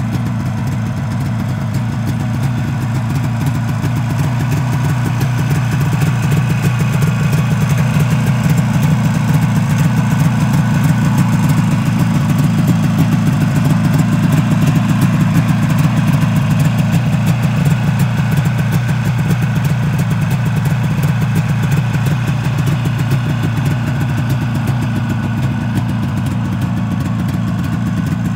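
1973 Harley-Davidson 440 snowmobile's two-stroke engine idling steadily, a little louder in the middle stretch.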